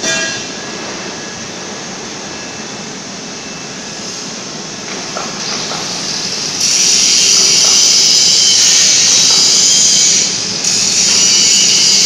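Steady running noise of a two-torch gantry beam welding machine. About halfway through, a loud steady hiss sets in, breaks off for a moment near the end, and starts again.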